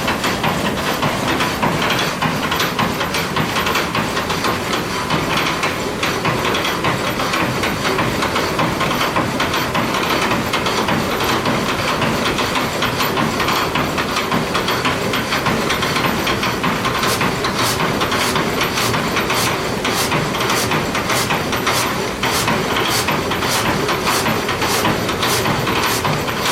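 Water-powered up-and-down sash saw cutting a log, with the rushing water and wooden gearing of the mill running in a loud, steady clatter. Late on, sharp regular clicks about two a second join in.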